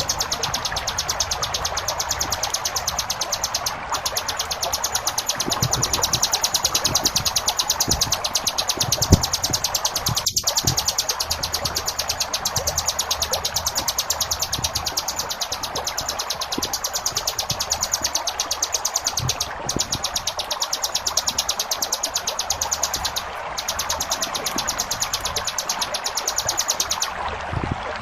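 Ciblek gunung, a prinia, giving its 'ngebren' song: a fast, dense run of high notes repeated many times a second, held almost without break until it stops near the end. Underneath is the steady rush of flowing water.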